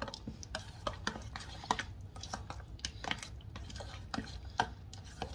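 A spoon stirring thick Greek yogurt in a stainless steel mixing bowl, clinking and scraping against the bowl's side in irregular clicks about two or three times a second.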